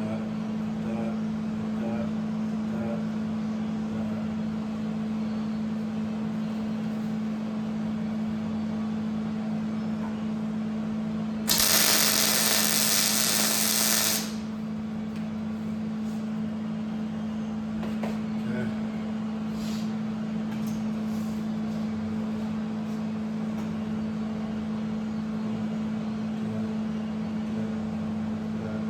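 Steady machine hum throughout, broken near the middle by one loud burst of a power tool working metal, lasting about two and a half seconds, with a few faint taps and clicks afterwards.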